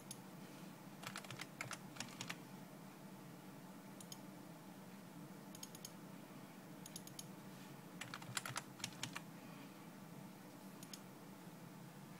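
Computer keyboard typing in two short flurries, about a second in and about eight seconds in, with separate quick double clicks of a mouse between them. A low steady hum runs underneath.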